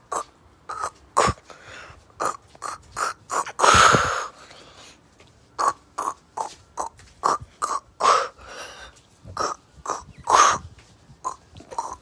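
A person making mouth noises: runs of tongue clicks, about two a second, broken by a few longer, louder breathy blasts about four, eight and ten seconds in.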